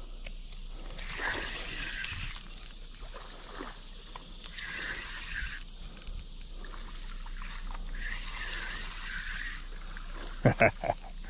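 Crickets chirring steadily in a high, even band, with three rising-and-falling sounds of about a second each. A quick cluster of sharp knocks about ten and a half seconds in is the loudest sound.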